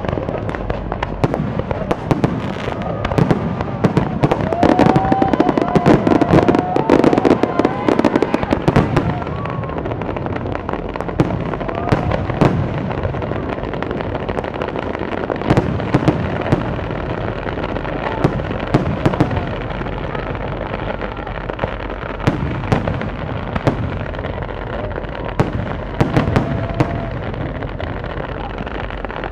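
Fireworks display: a dense, continuous run of bangs and crackling bursts, heaviest about four to nine seconds in.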